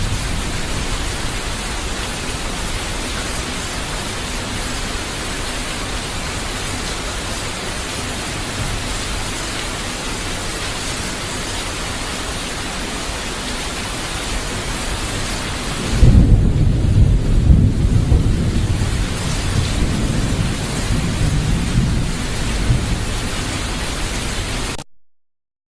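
Steady full-range hissing noise, then from about two-thirds in a louder, deep rumbling that cuts off abruptly near the end.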